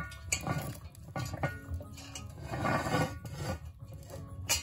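Cast iron Dutch oven set down and shifted on a metal campfire grate: a series of metallic knocks and clanks from the pot and its wire bail handle, a longer scrape in the middle, and a sharp clank near the end.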